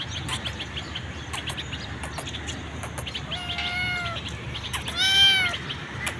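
A hungry stray kitten meowing twice, a drawn-out meow about three and a half seconds in and a louder one about five seconds in, against small birds chirping.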